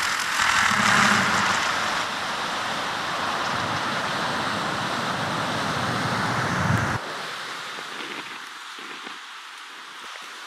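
Strong, gusty wind rushing over the microphone, a loud steady noise that swells in the first couple of seconds and drops off sharply about seven seconds in.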